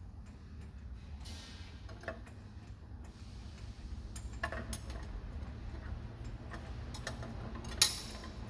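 Steel clutch plates clinking lightly as they are set into the aluminium case of a JF506E automatic transmission during reassembly, with one sharper metallic clink near the end, over a low steady hum.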